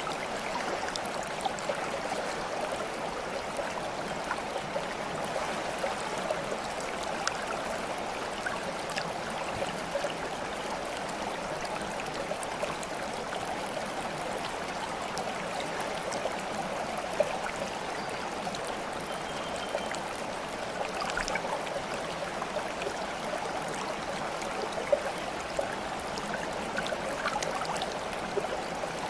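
Steady babbling of flowing stream water, trickling and gurgling, with small droplet ticks throughout and two sharper plinks in the second half.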